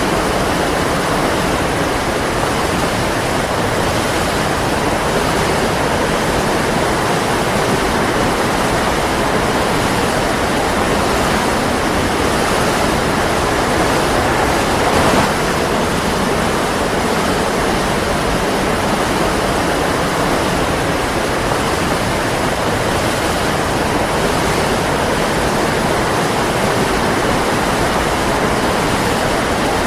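Waterfall rushing: a steady, dense roar of falling water with no let-up.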